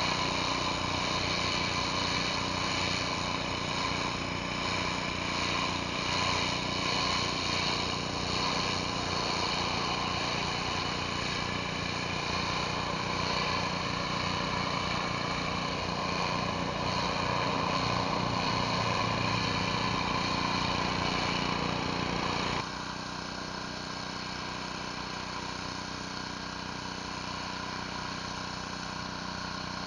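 Pressure washer running steadily: a motor hum under the hiss of a surface cleaner's spray on concrete. About two-thirds through the sound drops suddenly in level and loses some of its hiss.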